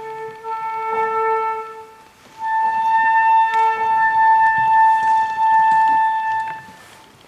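Flutes playing a slow melody in long held notes: a phrase with two notes sounding an octave apart, a short break about two seconds in, then one long high note held for about four seconds before it fades near the end.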